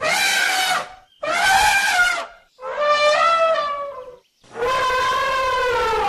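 Elephant trumpeting: four loud, brassy calls in a row, each held for about a second, the last one longer and running past the end.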